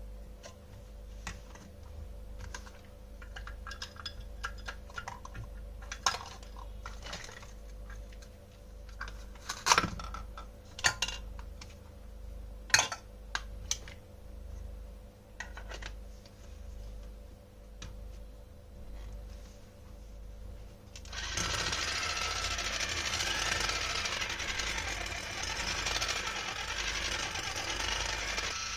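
Small toy kitchen pieces being handled, giving scattered light clicks and knocks. About twenty seconds in, a steady, louder rushing noise starts and carries on.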